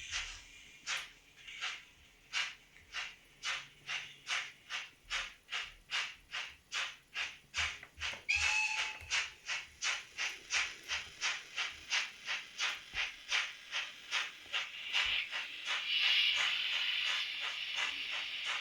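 ESU LokSound V5 decoder in an N-scale BR 18 (Bavarian S 3/6) steam locomotive model, playing steam exhaust chuffs through the model's small speaker as it pulls away. The beats come about two to three a second and quicken slightly. A brief high tone sounds about eight seconds in, and a steam hiss swells near the end.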